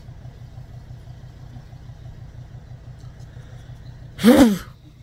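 Engine idling with a steady low rumble and an even, rapid pulsing beat. About four seconds in, one short, loud vocal burst with a bending pitch cuts over it.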